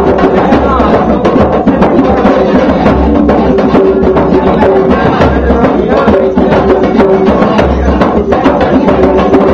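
Hand-drum jam: several djembes and a smaller goblet drum struck by hand together in a busy, steady rhythm, with deep bass strokes every second or two, and an electric guitar playing along.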